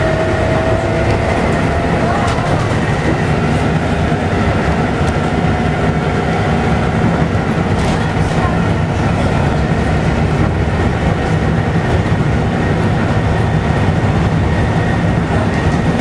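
Volvo B7TL double-decker bus under way, heard from inside the passenger saloon: its six-cylinder diesel engine and drivetrain run steadily and loudly. A thin whine rises slowly in pitch over the first few seconds, with an occasional click or rattle.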